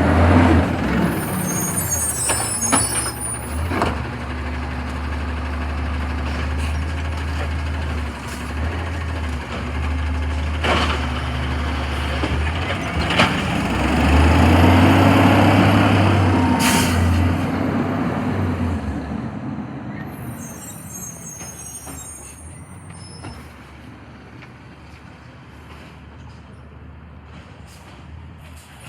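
Garbage truck's engine running, with several sharp knocks and short hisses of its air brakes. The engine grows louder around the middle, then fades away over the last third.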